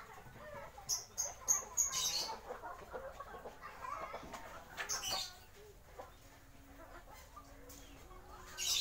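Bangkok game fowl clucking in short, low calls, with a few brief scratchy noises.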